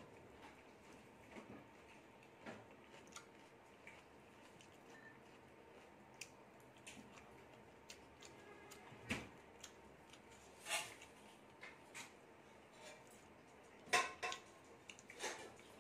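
Quiet hand-eating sounds: fingers mixing rice with dal and fried pomfret on a plate, with scattered soft clicks and taps. A few sharper clicks come in the second half, the loudest near the end.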